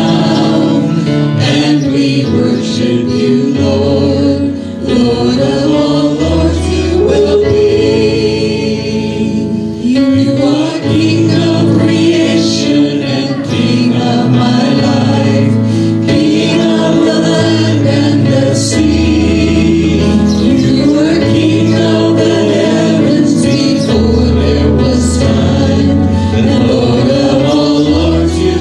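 Worship group and congregation singing a hymn together, accompanied by acoustic guitar over held bass notes that change every few seconds.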